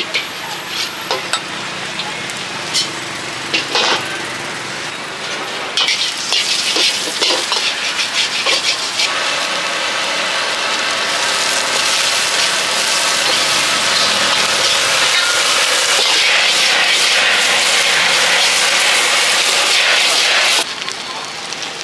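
Food sizzling in a hot wok, with a metal spatula clanking and scraping against the pan. The sizzle grows loud about six seconds in, holds steady, and cuts off abruptly near the end.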